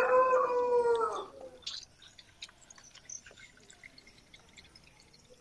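A long held voice-like tone fades out in the first second or so. Then faint, scattered drips and ticks follow as the last of the old engine oil runs out of the drain hole into a bowl.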